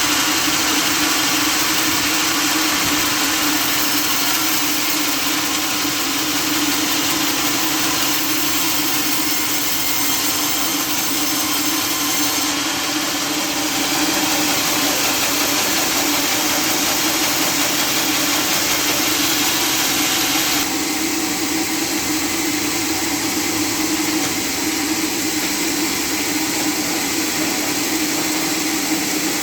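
Sawmill machinery running steadily: a constant motor hum under a broad hiss. The hiss changes about halfway through and drops about two-thirds of the way through.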